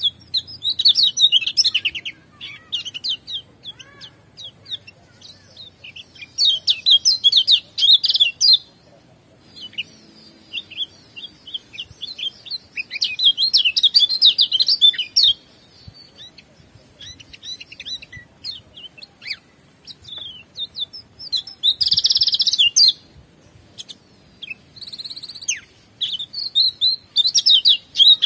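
A caged white-eye (kecial kuning) singing its fast, high, twittering song in bursts of one to three seconds, with short single calls in the gaps between them. A faint steady high-pitched tone runs underneath.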